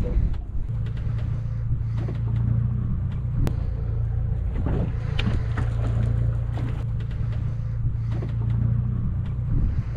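Fishing boat's engine running steadily with a low hum, with scattered light clicks and rustles from a gill net being handled on deck.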